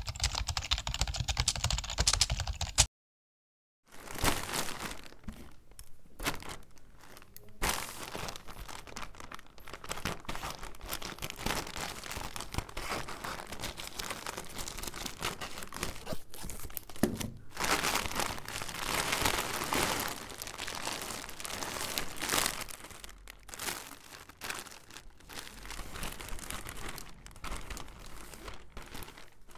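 Keyboard typing clicks for about three seconds, then a second of silence. Then scissors cutting through a plastic courier mailer bag, and the plastic mailer, clear plastic wrap and tissue paper crinkling and rustling as the package is opened.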